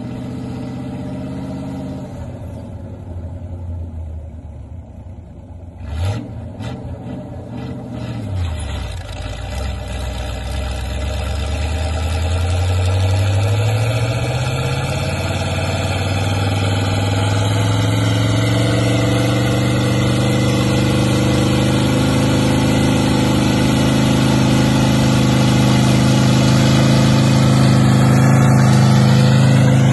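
Linn half-track tractor's engine working under load as it pulls a winter freight train of caboose sleighs, revving up about ten seconds in, then running steadily and growing louder as it comes close. A single sharp knock sounds about six seconds in.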